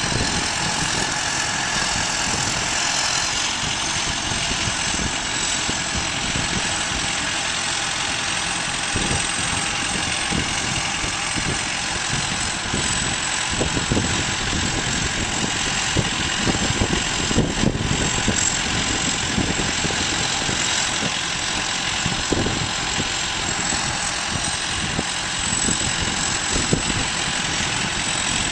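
Farm harvest machinery running steadily, its engine and drivetrain making an even, continuous noise with a thin high whine over it.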